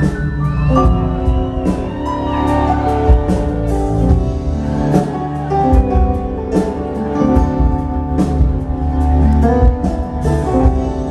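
Rock band playing live: electric guitars over bass and drum kit, loud through the concert hall.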